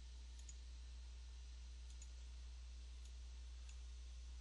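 A few faint computer mouse clicks over a steady low electrical hum.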